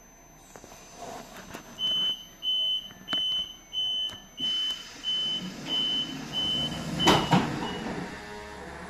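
Train door-closing warning beeper, about ten evenly spaced high beeps, then a loud bang about seven seconds in as the door shuts.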